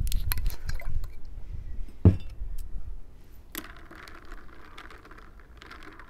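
Soda water poured over crushed ice in a glass, the bottle set down on the table with a knock about two seconds in. A metal straw then stirs the drink, the ice crackling and clinking softly.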